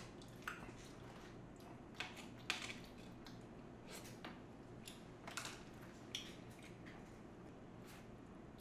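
A plastic spoon scraping and clicking against a plate as the last food is gathered and eaten, a handful of short scrapes, the loudest about two and a half seconds in, with quiet chewing between them.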